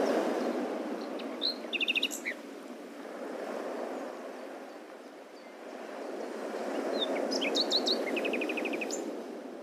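Small birds chirping: two bursts of quick, high chirps and trills, one about a second and a half in and another around seven seconds in, over a soft, even rushing background noise.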